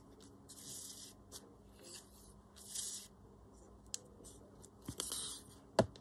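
Paper being handled on a desk, with glue squeezed from a small plastic bottle onto a paper envelope: a few short scratchy rustles, then a sharp light tap near the end.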